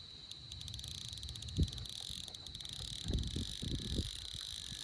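Night insects trilling steadily in a high, even chorus, with a few low thumps from handling around the middle.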